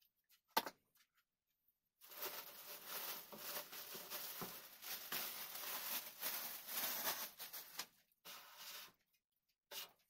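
Packaging of a computer part being handled and unpacked: a sharp click, then about six seconds of continuous rustling and scraping, and a shorter burst of rustling near the end.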